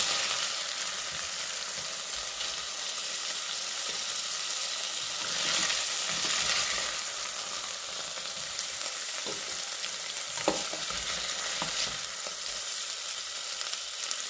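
Chicken breast pieces sizzling as they brown in hot oil in a stainless steel pot, with a spatula scraping and turning them against the pot and one sharp knock about ten seconds in.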